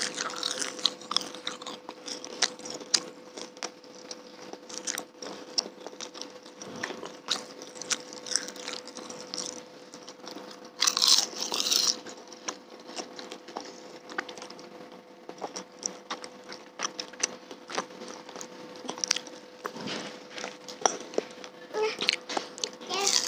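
Close-miked chewing and biting of fried cilok (tapioca balls), a run of small crunches and mouth clicks, with a louder noisy burst about eleven seconds in. A faint steady hum sits underneath.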